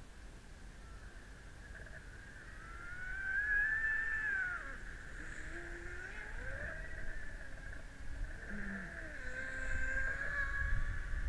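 Model speedboat's motor whining steadily, its pitch gliding up and then down as the throttle changes, loudest about three to four seconds in and again near the end.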